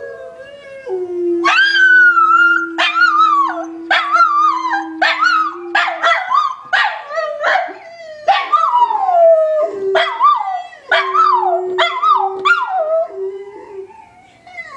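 Miniature schnauzer howling in a long run of short, high howls, each falling in pitch, joined in answer to dogs howling from a video on a laptop, whose lower, steadier howl sounds beneath them for the first few seconds and again later.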